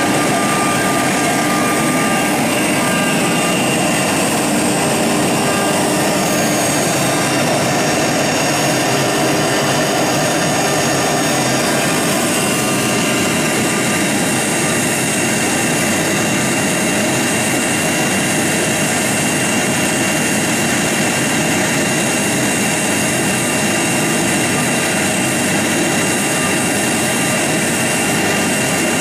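CNC wood router's spindle running a straight router bit through a wood door panel: a steady high whine over the hiss of the cut, with the whine's tones shifting about twelve seconds in.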